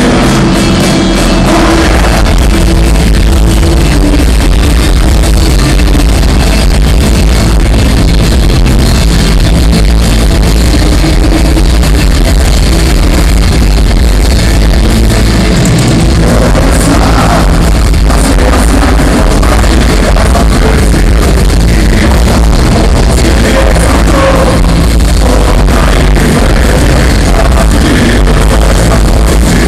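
Loud live rock music from a band on an arena stage, picked up by a phone's microphone, with heavy bass and a level held near the top throughout.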